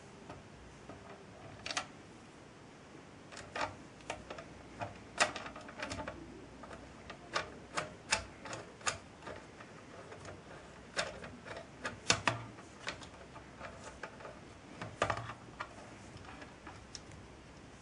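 Allen key clicking and tapping in a screw head as the screw is turned to fix a 3D-printed plastic foot to a plate: light clicks at irregular intervals, with a few louder ones.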